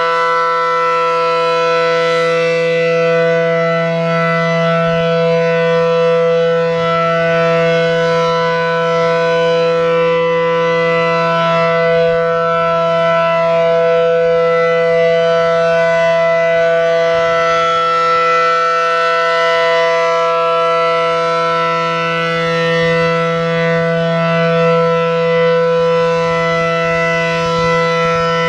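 Reverse-wired ACA Allertor 125 outdoor warning siren sounding its steady Alert tone: a loud, held chord of several pitches that never rises or falls, swelling and fading slowly as the rotating horns sweep past.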